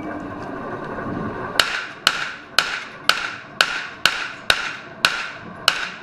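A string of pistol shots at about two a second, nine of them starting about a second and a half in, each a sharp crack with a brief ring. Before the first shot there is a rustle of movement.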